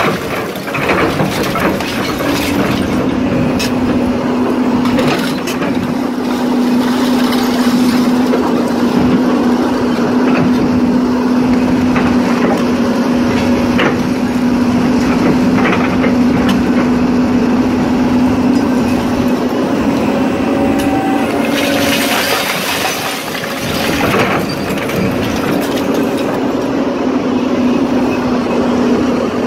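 Doosan DX300LC excavator's diesel engine and hydraulics running with a steady hum while it works a hydraulic scrap magnet over a debris pile, with scattered knocks and clanks of scrap. About three quarters of the way in there is a louder rushing, clattering stretch lasting a couple of seconds.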